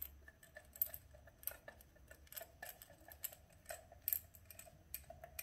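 Hand screwdriver with a Torx T25 bit turning a small screw into a driving-light housing, giving short, sharp clicks a couple of times a second at an uneven pace.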